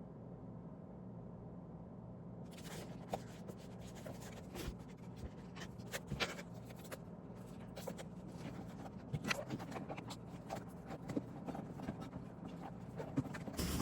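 Steady low room hum, then from about two and a half seconds in, light irregular scratching with many small clicks and taps, like a pen on paper or small objects being handled.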